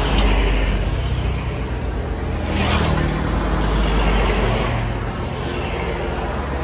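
A vehicle engine running at a steady idle, with a noisy rushing swell about two and a half seconds in.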